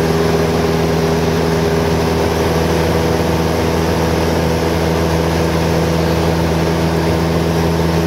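Light aircraft's piston engine and propeller droning steadily in flight, heard from inside the cabin with rushing airflow noise.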